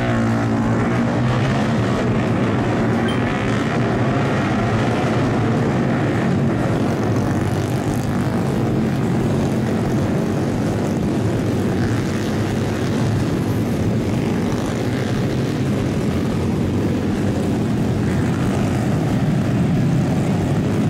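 A pack of about thirty Honda Grom 125cc single-cylinder four-stroke mini bikes pulling away from a race start together, their small engines at high revs blending into one steady, dense drone.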